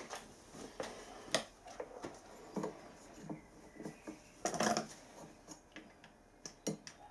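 Light clicks and metallic clinks of small steel valve-gear parts being handled and fitted on an old steam engine, with a louder clatter about four and a half seconds in.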